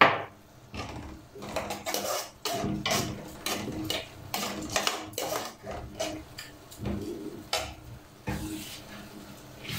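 Wooden spoon stirring a thick rice, tomato and herb filling in a metal pot, scraping and knocking against the pot about twice a second. A sharp clink comes at the very start.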